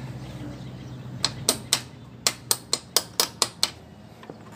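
A run of about ten sharp metal taps, roughly four a second, then a faint last one: the rocker-arm pin being tapped into the cylinder head of a Yamaha Mio M3, a tight fit.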